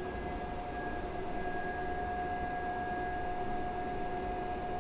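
PlaneWave L-600 direct-drive mount motors whining as they drive the telescope, a steady high tone that holds one pitch throughout.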